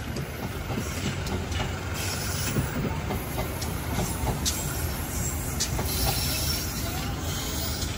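Train running past on the rails: a steady rumble of wheels with scattered sharp clicks and faint wheel squeal.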